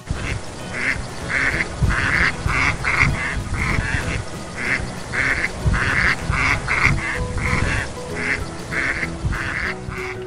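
Ducks quacking over and over, short rough quacks about two a second, with background music underneath.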